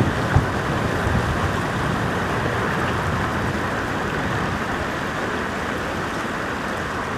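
Heavy ocean swell washing against a rock ledge: a steady rushing wash of surf, with one brief knock just after the start.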